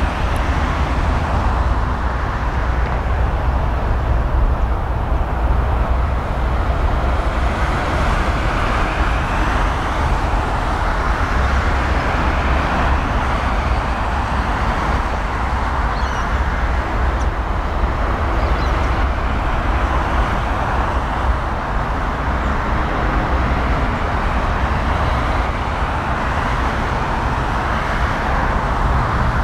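Jet engines of a twin-engine widebody airliner on final approach and landing: a steady roar over a deep rumble, swelling and easing slowly.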